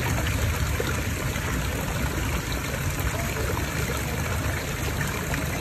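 Small rock waterfall and fountain jet splashing steadily into a garden koi pond, a constant rush of falling water with a low rumble underneath.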